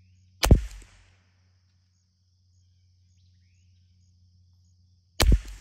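Two .22 LR rifle shots about five seconds apart, each a sharp crack with a short decaying tail.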